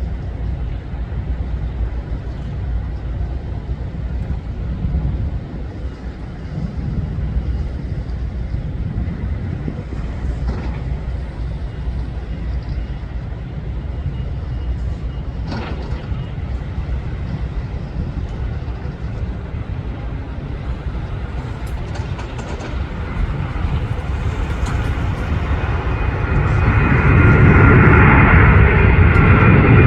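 Airbus A350's Rolls-Royce Trent XWB jet engines at takeoff thrust, first a distant low rumble, then much louder about 26 seconds in as the airliner comes closer.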